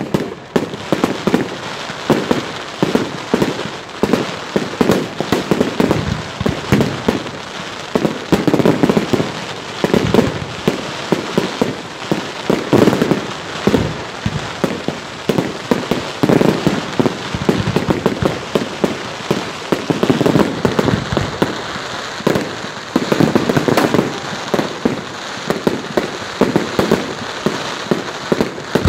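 Aerial fireworks going off in a continuous barrage: dense bangs and pops several times a second, with heavier shell bursts every second or two and no pause.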